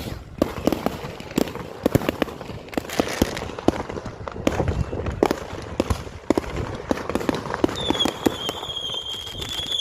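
Fireworks going off: a rapid, irregular string of bangs and crackling pops. From about eight seconds in, a high steady whistle joins them.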